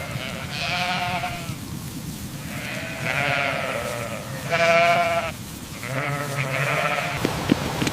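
Bleating livestock: four separate quavering bleats of about a second each, the loudest about four and a half seconds in.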